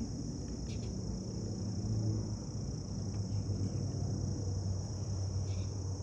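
Steady, high-pitched chorus of insects in the yard, running without a break, over a low steady background rumble.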